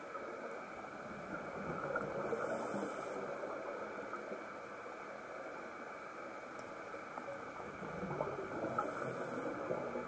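Underwater sound through a camera housing: a steady bubbling crackle, with the hiss of a scuba regulator breath twice, about two seconds in and again near the end.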